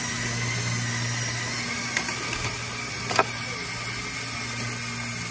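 Lego Technic tank's twelve Powered Up L motors and gear trains whining steadily as the tracks drive it, with two sharp clicks about two and three seconds in.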